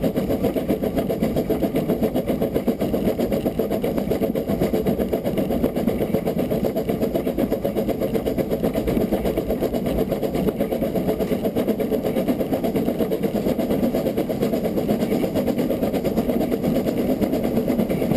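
Beyer Peacock 2-4-0 tank locomotive Loch chuffing in a rapid, steady rhythm of exhaust beats as it works hard up a 1 in 65 gradient.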